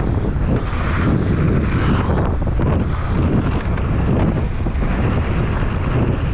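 Wind buffeting the action camera's microphone as a mountain bike descends at speed, over tyres rolling and crunching on dirt and gravel and the bike rattling over the bumps.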